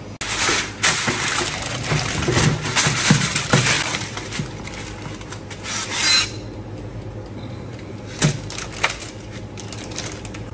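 Aluminium foil crinkling and rustling as it is pressed and folded around a baking tray, in a dense run of crackles for about six seconds. Two short knocks come a couple of seconds later.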